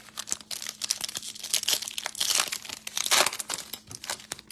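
Trading-card pack wrapper crinkling as it is torn open and the cards are pulled out, a dense crackle of many quick rustles. It is loudest a little past the middle and again at about three seconds in.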